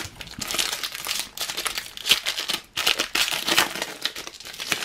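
Wrapper of a trading-card booster pack crinkling as the packet is handled, torn open and the cards pulled out: continuous dense crackling.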